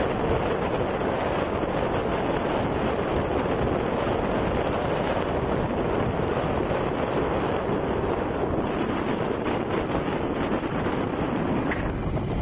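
Steady rushing wind buffeting the microphone of a moving vehicle, mixed with road and travel noise.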